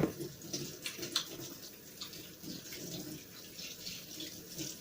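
A knock right at the start, then water running from a tap and splashing over hands being washed at a sink.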